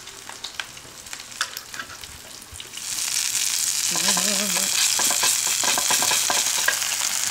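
Tomahawk steak sizzling on a hot tabletop grill. The sizzle turns much louder about three seconds in, as the meat is cut down onto the grill plate, with small clicks from the utensils.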